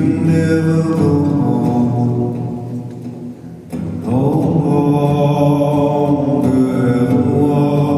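Male voice singing a slow song live, holding long notes over a steady accompaniment. There are two sung phrases, with a short dip before the second begins about four seconds in.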